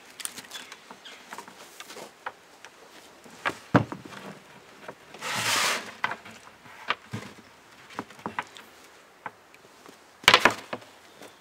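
Handling noises from vintage metal belt sanders and their power cords being moved about on a plywood table: scattered knocks and clicks, a brief rustle about five seconds in, and a cluster of louder knocks near the end. No sander motor is running.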